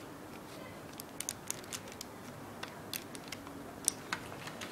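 Small plastic Lego bricks clicking and rattling as they are handled and pressed onto a brick-built Lego pistol, likely a small scope being fitted. A scatter of light, sharp clicks starts about a second in.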